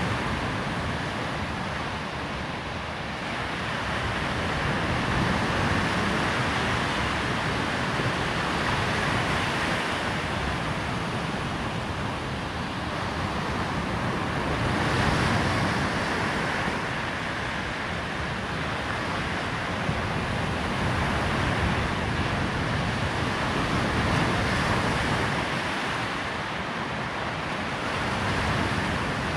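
Surf breaking on a sandy shore: a continuous wash of waves that swells and eases every few seconds.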